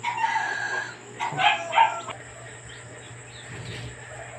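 A dog's short whine at the start, then two quick barks about a second and a half in.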